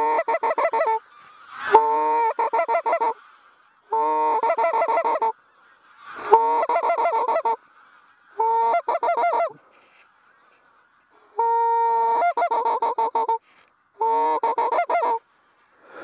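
Greylag geese honking: seven runs of quick, clipped honks, each run about a second long, coming every couple of seconds with short pauses between.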